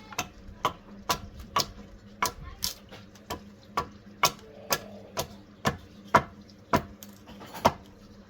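Regular sharp knocks, about two a second, from tool work on wood while shaping a bow, over a faint steady hum.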